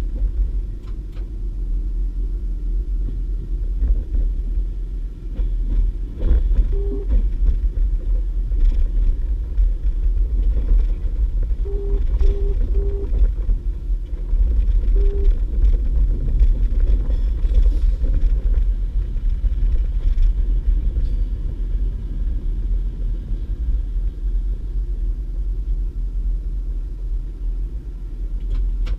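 Steady low rumble heard inside a DB Class 612 diesel multiple unit under way: its diesel engines and wheels on the track. A few short tones sound about halfway through.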